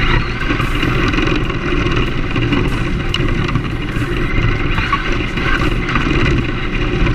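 Onboard sound of a Team Associated SC10 brushless short course RC truck driving on rough asphalt: a steady rumble of the tyres on the coarse road mixed with the whir of the electric motor and drivetrain.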